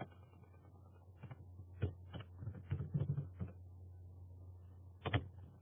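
Faint, irregular computer keyboard keystrokes, clustered from about a second in to past halfway, then one more click near the end, over a low steady hum.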